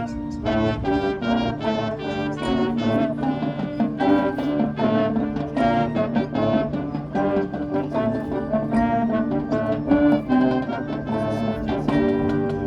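Marching band playing, brass carrying a busy melodic line of quick, steadily moving notes over a sustained low bass note.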